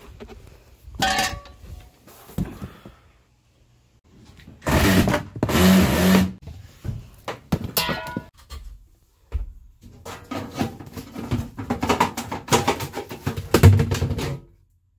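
Knocking, clattering and scraping from built-in ambulance cabinetry and panels being pried apart and handled. A dense scraping stretch comes about five seconds in, and a run of sharp knocks and clatters near the end.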